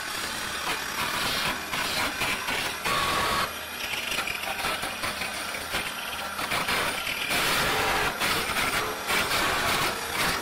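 Flat chisel cutting a wooden blank spinning on a 350-watt mini wood lathe: a loud, rough scraping hiss over the lathe's motor, rising and falling as the tool bites into the wood.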